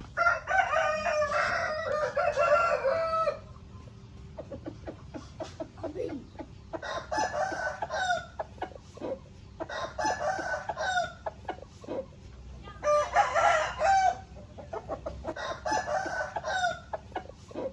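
Rooster crowing five times, the first crow the longest, with short clucks and sharp sounds in between.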